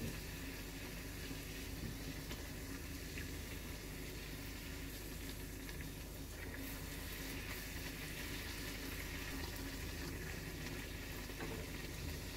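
Hot oil sizzling and bubbling steadily as a chana dal puri deep-fries and puffs up in a kadhai.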